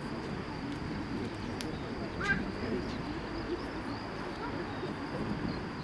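Steady low rush of a distant British Airways Airbus A380's four jet engines at takeoff power as it rolls and rotates, with birds calling close by and one short chirp about two seconds in.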